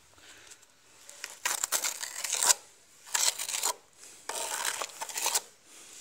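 Steel notched trowel scraping and combing wet tile mortar across a wall, in three strokes of about a second each, the first the loudest.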